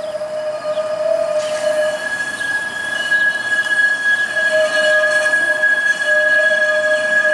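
Wheels of a TTC Flexity Outlook streetcar squealing against the rails as it rounds a curve. The squeal is steady and high-pitched. A lower tone drops out and returns, and a higher tone joins about a second and a half in, growing louder.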